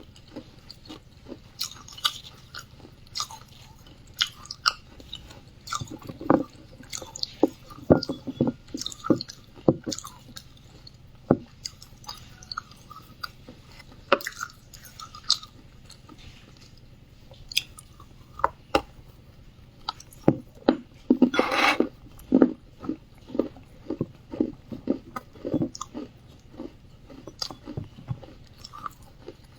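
Wet clay being bitten and chewed close to the microphone: irregular crunches and crackles, with one longer, louder crunch about two-thirds of the way through.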